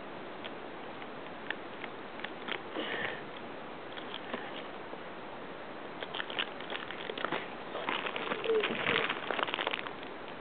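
Thin plastic bag crinkling and crackling as it is handled, in scattered crackles at first, then busier and louder over the last few seconds.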